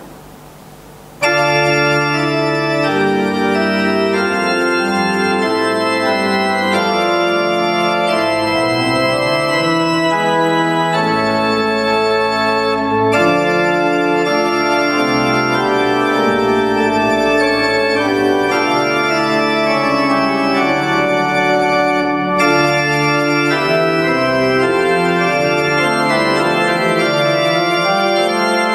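Church organ playing full, sustained chords that change every second or two, starting suddenly about a second in.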